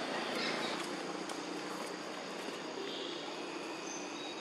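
Forest ambience: a steady hiss with a few faint, brief high chirps and small ticks.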